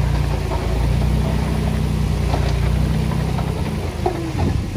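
Dump truck's diesel engine running steadily while the raised bed tips its load, with faint rattles of soil and stones spilling off. The engine's drone falls away about four seconds in.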